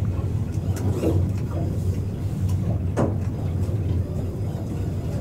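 Boat's engine idling: a steady low rumble, with faint voices over it.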